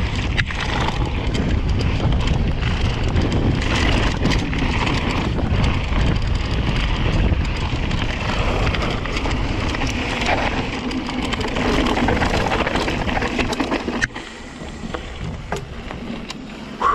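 A Rocky Mountain Slayer mountain bike descending a rough trail: tyres rolling over dirt and stones and the bike rattling, with many sharp knocks and wind rushing over the GoPro's microphone. The noise drops sharply about fourteen seconds in, leaving a few scattered knocks.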